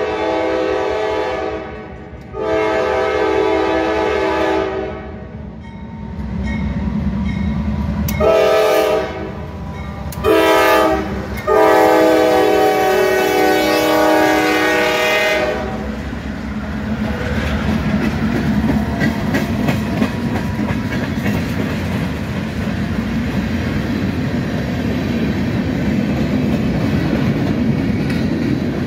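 Norfolk Southern diesel locomotive horn sounding a chord in a series of blasts: two long ones, two shorter ones, then a final blast of about four seconds. After that comes the steady rumble and clickety-clack of the train's wheels on the rails as the cars roll past.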